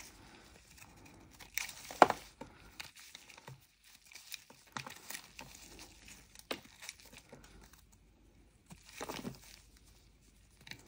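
Snap-off utility knife blade scraping and cutting a chunk of dry edible clay (mokko), with quiet, irregular crumbly scratches and crackles. There is a sharp crack about two seconds in and a longer crunchy scrape near the end.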